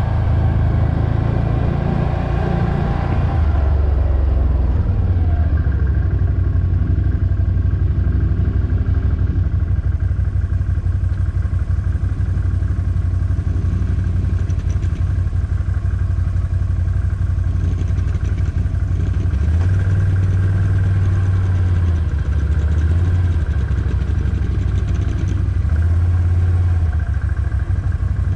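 ATV engine running under way, a steady low rumble that shifts in pitch and level several times as the throttle changes.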